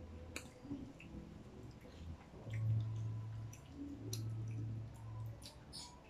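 Close-up eating sounds: fried chicken and spaghetti being chewed and picked at by hand, with small wet clicks and smacks from mouths and fingers. A low hum comes in twice in the middle and is the loudest thing heard.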